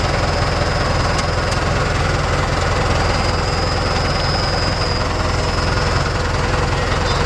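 Tractor engine running steadily and loudly close by, with a low, rapid, even chug.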